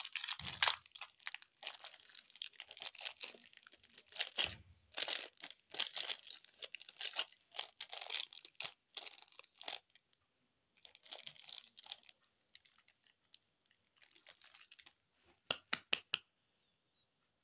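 Plastic candy wrappers crinkling and tearing as they are unwrapped by hand, in dense irregular bursts that thin out after about ten seconds. Two dull thumps about half a second and four and a half seconds in, and a few sharp clicks near the end.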